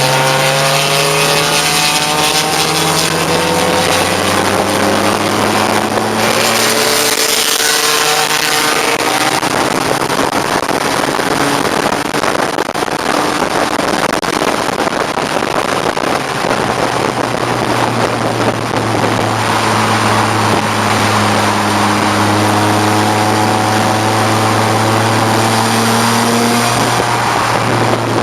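1989 BMW 535i's straight-six engine pulling hard under race conditions, its pitch climbing through the revs and falling back at gear changes, about a quarter of the way in and again near the end. Heavy wind and road noise run under it.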